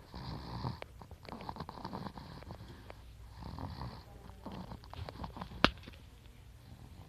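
A small child snoring in sleep, with snoring breaths coming about every second and a half. A single sharp click sounds about five and a half seconds in.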